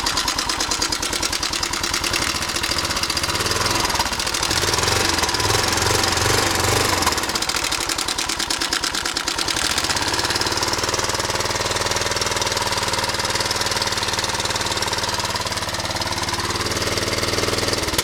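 A 1998 Suzuki Savage 650's single-cylinder engine running with a loose cam chain rattling, a sign that its cam chain tensioner has come out of its body. The engine's note changes about ten seconds in.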